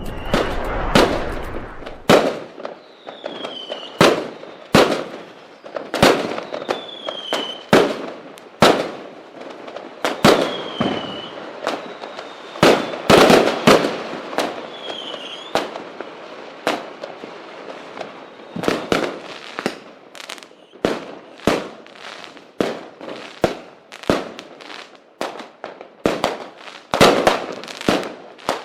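Fireworks going off: a string of sharp bangs and pops at irregular spacing, about one or two a second. There are four short falling whistles in the first half, and the bangs come more densely in the last third.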